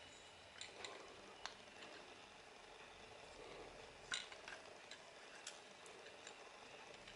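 Faint, scattered small metallic clicks and taps of a roller-shutter crank winch's parts being handled and unscrewed, the clearest about four seconds in.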